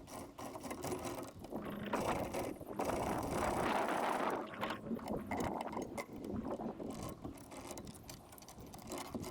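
Old anchor chain rattling and clanking as it is removed, a run of metal clicks and clatter that is loudest about three to four and a half seconds in.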